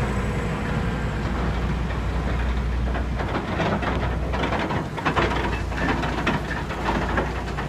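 Heavy-haul truck and multi-axle lowbed trailer loaded with a crawler excavator rolling over a gravel road: a steady low engine rumble, with irregular rattling and clanking of the trailer and its load from about three seconds in.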